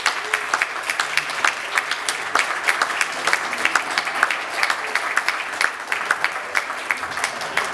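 Congregation applauding, many hands clapping steadily.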